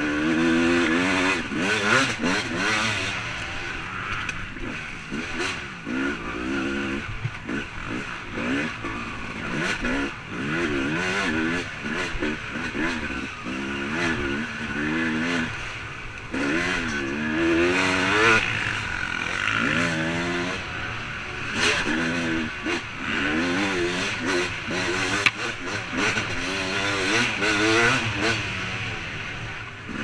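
Dirt bike engine, heard from the rider's helmet, revving up and falling back again and again as the throttle is worked through the gears on a trail. A single sharp knock comes late on.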